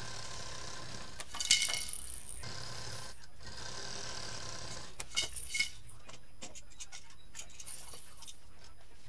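Plastic baby rattles and toys clicking and rattling as they are picked up and set down on a table, in two short bursts about a second and a half in and about five seconds in.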